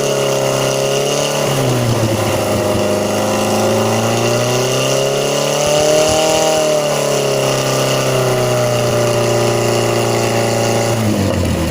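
Car engine running through a motorcycle exhaust muffler, revved slowly up to a peak about halfway through and then eased back down to idle, with the revs dipping again near the end.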